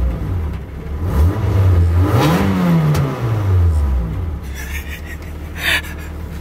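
Toyota AE86 GTS's 1.6-litre 4A-GE twin-cam four-cylinder engine being revved while parked, heard from inside the cabin: the pitch climbs to a peak about two and a half seconds in, then falls back to a low idle. The engine is running again on a new fuel pump and filter.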